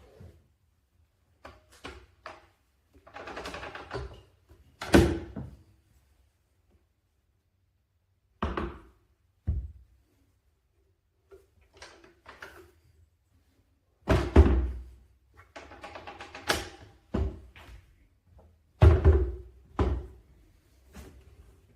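Plastic baby push walker wagon being knocked and bumped about, a series of hollow thunks and knocks with rattling handling sounds between them.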